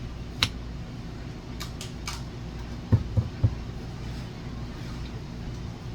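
Kitchen work sounds over a steady low hum: a few light clicks in the first two seconds, then three dull knocks in quick succession about three seconds in, typical of utensils and a bowl being handled while cake batter is mixed.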